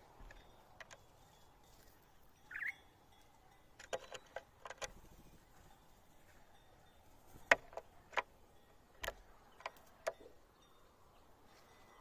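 White-naped jays at a papaya on a wooden rail: one short rising call about two and a half seconds in, then a scatter of sharp clicks and taps, the loudest about halfway through.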